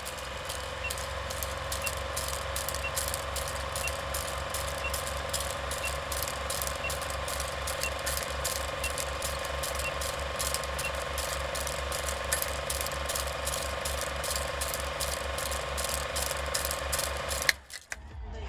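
Machinery running with a fast, even clicking over a steady hum, and a short high beep about once a second for the first ten seconds; it cuts off suddenly near the end.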